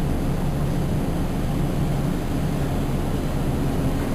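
Steady low machinery drone aboard a containership, a constant rumble with a low hum in it.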